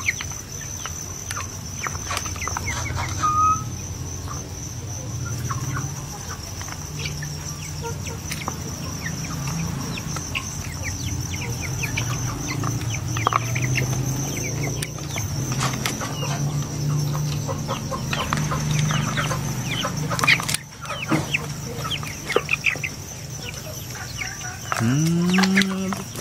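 Domestic chickens clucking in low, running murmurs, with many light taps and clicks; about 25 s in, one call rises in pitch.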